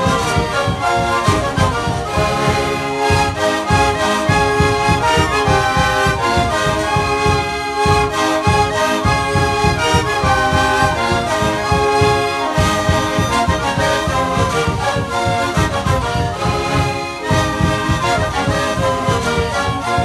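Siku (Andean panpipe) ensemble playing a sikuri tune, many pipes sounding the melody together over a steady low beat.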